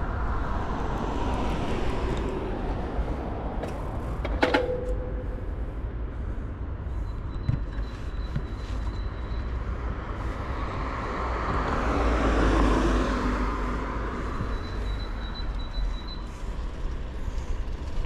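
City road traffic heard from a moving bicycle, over a steady low rumble. A vehicle swells past about twelve seconds in, and there is one sharp click about four and a half seconds in.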